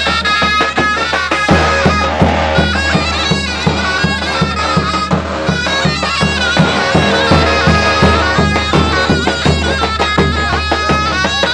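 Zurna shawm playing a shrill folk melody over the steady beat of a davul bass drum: Turkish davul-zurna music.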